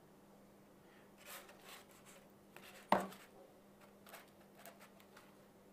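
Faint scratching of a pen and steel ruler handled on a thermocol sheet while lines are being marked, with one sharp knock about three seconds in, over a faint steady hum.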